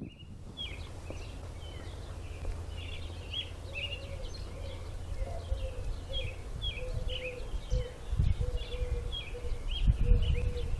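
Songbirds chirping: a quick, irregular run of high chirps, with a lower short note repeated about twice a second from partway in. Under it is a low rumble of wind on the microphone that gusts louder twice near the end.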